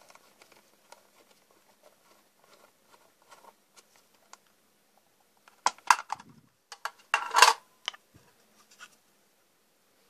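Screwdriver turning a screw in the red plastic housing of a Legrand 380 12 manual fire alarm call point, with faint scratchy ticks, then the plastic front cover unclipped and pulled off its base with loud clicks and clatter twice, about six and seven and a half seconds in.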